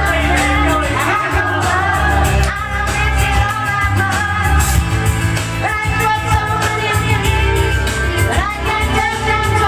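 Pop-rock song with a singer over a steady beat and bass.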